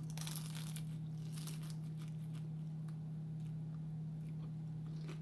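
Crisp fried egg-roll wrapper crunching as it is bitten into, a dense burst of crackles at the start, then scattered crackles as the bite is chewed, over a steady low hum.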